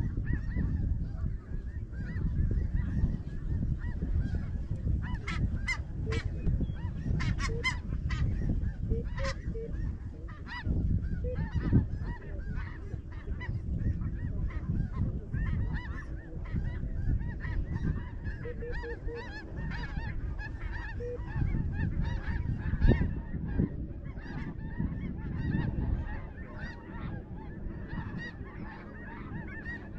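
A big flock of snow geese calling continuously, many overlapping high honks and yelps, over a low rumble.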